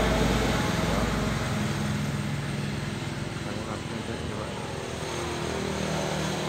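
Steady engine-like drone with a low hum, a little quieter after the first two or three seconds.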